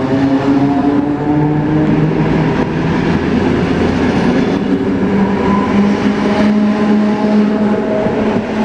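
A Mat '64 Plan V electric multiple unit pulling out. Its traction motors whine in several steady tones over the train's running noise, and the pitch of the whine shifts about halfway through.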